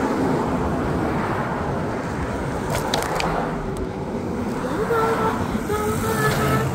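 Wind rush and road noise on a moving scooter, with car traffic on the road around it. A couple of clicks sound about three seconds in, and from about five seconds in short, steady pitched notes come and go over the noise.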